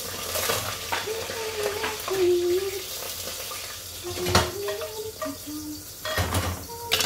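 Chicken frying and sizzling in a pan on a gas stove while a wooden spatula stirs and knocks against the pan, with sharp knocks about two and four seconds in and a louder noisy burst near the end. A tune of held notes plays underneath.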